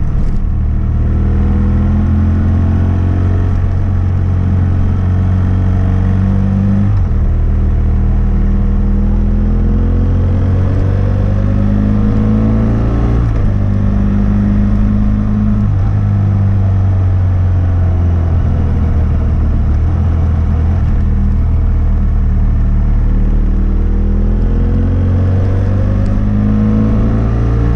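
2006 BMW F800S parallel-twin engine breathing through a GPR Furore aftermarket exhaust with its dB-killer fitted, running under way. The revs climb and fall, with sudden steps in pitch a few times, around 7, 13 and 21 seconds in.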